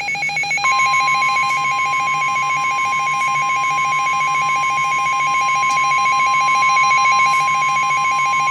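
Emergency Alert System attention signal heralding a severe thunderstorm warning: a rapidly pulsing, ringing alarm tone, joined under a second in by a loud steady single tone that holds on.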